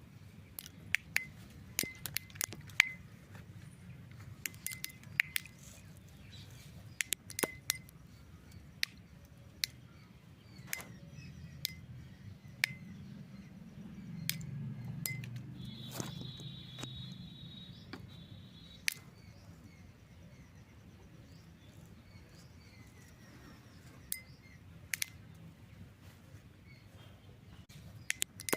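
Ripe petunia seed capsules popping open, a scatter of sharp irregular clicks, thick at first and sparser later, as the pods split and fling out their seeds.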